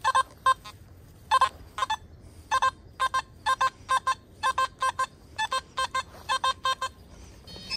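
Nokta Makro Simplex+ metal detector sounding a buried metal target: short electronic beeps, about two a second, as the coil sweeps back and forth over it.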